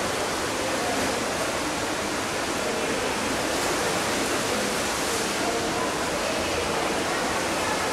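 Steady rushing, water-like noise of a swimming pool during an underwater hockey match, with faint, indistinct voices beneath it.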